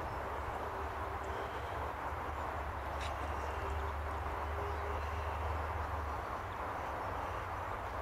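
Steady outdoor background: an even rushing noise with a low rumble underneath and faint, brief bird calls, plus a single click about three seconds in. The feeding swan itself makes no clear sound.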